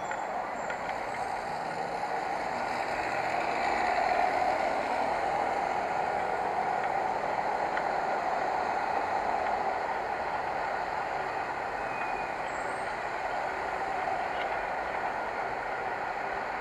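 Steady road noise from riding a bicycle, heard through an action camera's microphone; it grows a little louder about four seconds in.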